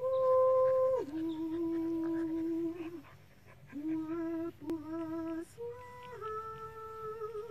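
Slow humming in long, steady held notes that step between a few pitches, with short breaks between phrases.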